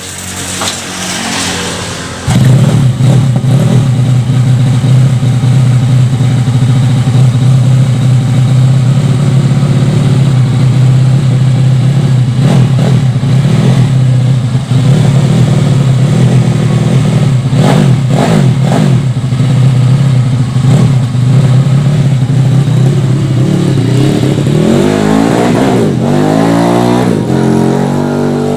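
Yamaha Vega ZR's four-stroke engine, bored out to about 193 cc with a swapped Mio cylinder, is kick-started. It catches about two seconds in and runs loud and steady at a raised speed, then revs up and down several times near the end.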